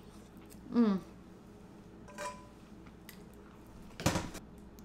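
A woman's brief falling "mmm" while tasting food, about a second in. Near the end comes a short clatter of kitchenware being handled or set down.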